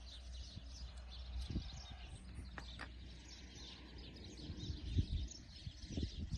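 Small songbirds chirping and singing continuously in the background over a steady low rumble, with a few soft knocks from handling the bird, the loudest about five seconds in.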